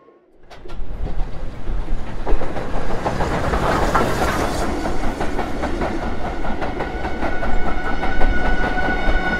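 Steam train, BR Standard Class 2 locomotive 78018 with its coaches, passing close by: a loud rushing running noise with the wheels clicking over the rail joints, loudest about four seconds in as the engine goes past. Faint steady pitched tones start to come in near the end.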